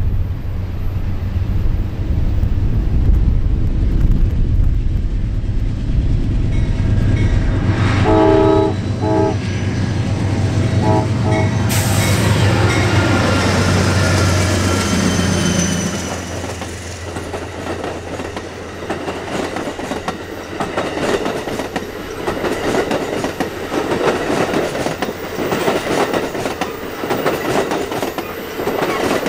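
Amtrak passenger train approaching and passing. The diesel locomotives' engines rumble steadily as they near. The lead locomotive's air horn sounds a chord in several blasts about eight to eleven seconds in. The locomotives rush by, then the bilevel Superliner cars roll past with their wheels clacking rhythmically over the rail joints.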